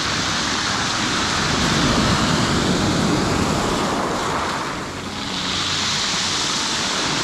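Sea surf breaking and washing up a pebble beach. Two surges of rushing water, the first building to a peak about two seconds in, then easing before a second surge rises near the end.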